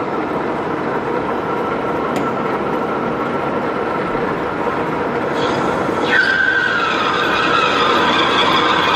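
Dean Smith and Grace Type 21 lathe turning a long grade 5 titanium bar, a steady running and cutting noise. About six seconds in, a high whining tone joins it and slowly drops in pitch.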